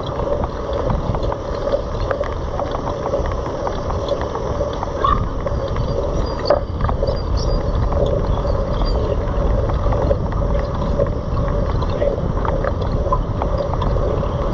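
Wind rumble on a bike-mounted action camera's microphone while a Citi Bike is ridden, with a steady hum and scattered small rattles and clicks from the bike.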